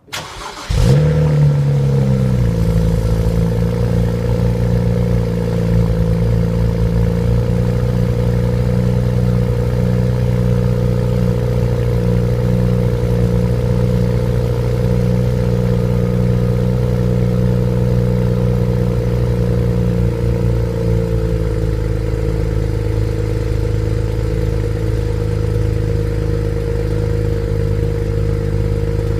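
BMW 335xi's stock twin-turbo 3.0-litre straight-six cranking briefly and catching within about a second, flaring up, then settling into a steady fast cold-start idle. About twenty seconds in, the idle speed drops a little.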